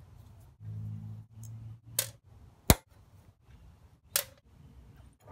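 Hand-tool work on a small mower engine's carburetor linkage: three short sharp metal clicks of a screwdriver, screws and small parts, the loudest about halfway through, with two brief low hums in the first two seconds.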